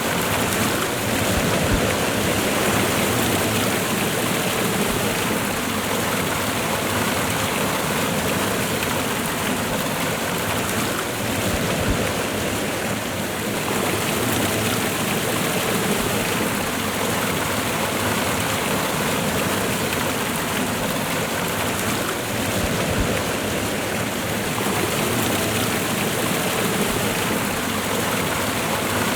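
Waterfall and fast-running river water rushing in a steady, unbroken roar.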